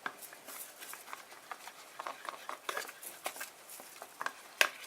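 A spoon clicking and scraping irregularly in a bowl as cornstarch is worked into a runny chia seed and water slime mixture, with one sharper knock near the end.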